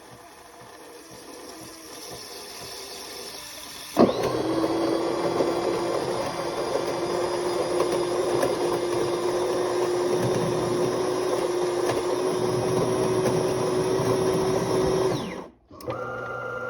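Fricoffee espresso machine with built-in grinder running with a steady motor-like hum. It starts suddenly about 4 seconds in and cuts off about 11 seconds later.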